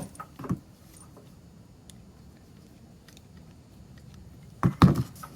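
Light clicks and handling noise of a replacement power plug and its wires being worked by hand, with a brief cluster of louder knocks near the end.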